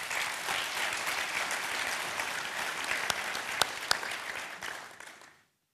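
Audience applauding, with a few sharper single claps standing out, dying away about five seconds in.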